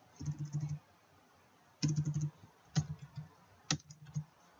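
Computer keyboard typing in about four short bursts of keystrokes, with a pause of about a second between the first two bursts.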